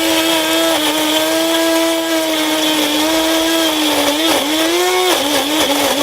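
Electric kitchen blender running, its motor whining steadily at first, then dipping and wavering in pitch from about halfway as it works through a thick chilli paste of large chillies, bird's-eye chillies, turmeric and tempoyak with a little water.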